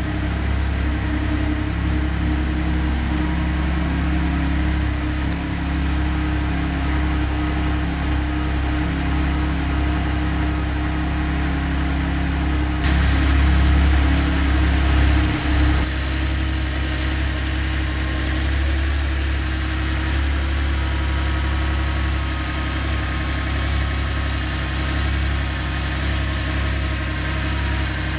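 1973 Porsche 911T's air-cooled 2.4-litre flat-six idling steadily, getting a little louder and hissier for a couple of seconds midway through.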